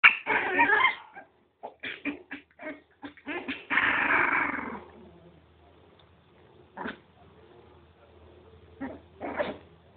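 Miniature pinscher puppies play-growling and yipping in a quick run of short bursts for the first five seconds, then only a few single yips near the end.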